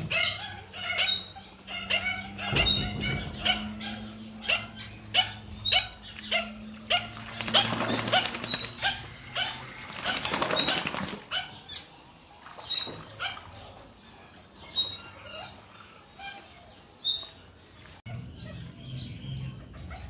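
A duck bathing in shallow water, splashing and beating its wings on the surface in repeated bouts, with a dense run of rapid splashing about halfway through.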